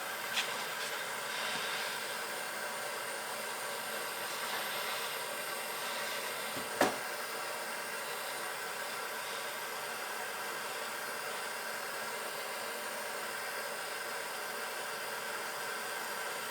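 Handheld gas torch flame hissing steadily as it heats a brake caliper bracket bolt to break down its red thread-locker. A single short, sharp knock sounds about seven seconds in.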